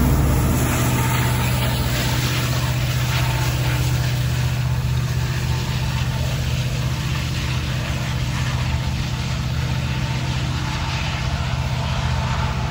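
Union Pacific diesel freight locomotive running, a steady low engine rumble that eases down slightly in the first couple of seconds as the train moves away.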